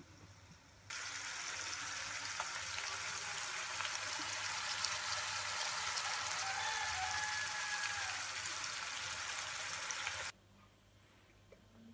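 Small spice-coated whole fish sizzling as they fry in oil in a nonstick wok: a steady hiss with scattered crackles that starts suddenly about a second in and cuts off near the end.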